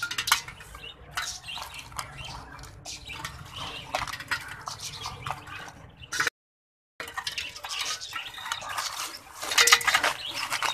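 Chunks of ice dropped by hand into sardai in an aluminium pot, splashing and clinking against the metal and the steel spoon standing in it. The sound cuts out completely for a moment about six seconds in, then a quicker run of clinks and splashes comes near the end.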